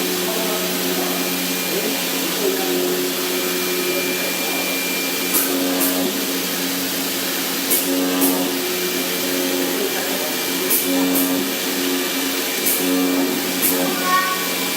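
CNC flatbed cutting machine running: a steady hiss from its vacuum hold-down blower, with motor tones that change pitch in steps as the cutting head moves. Pairs of sharp clicks come every two to three seconds.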